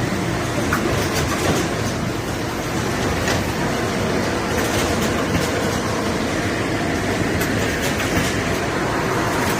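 Shrink-wrapping machine running: a steady mechanical rumble and blowing noise with scattered light clicks and rattles.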